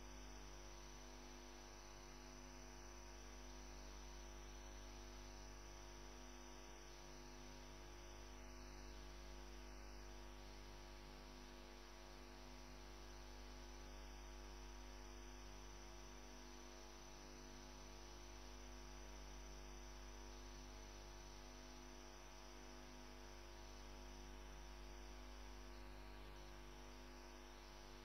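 Near silence with a steady low electrical hum.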